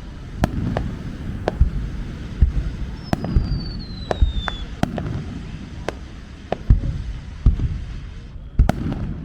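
Fireworks display at close range, with shells going off in quick, irregular succession as sharp bangs over a low rumble. A whistle falls in pitch about three seconds in.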